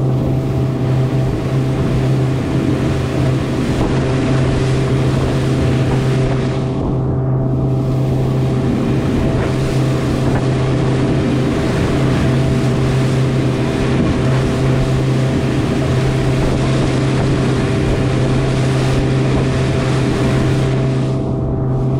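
Motorboat engine running steadily at speed, a steady hum under the loud hiss of spray off the bow and wind on the microphone. The spray hiss thins briefly about seven seconds in and again near the end.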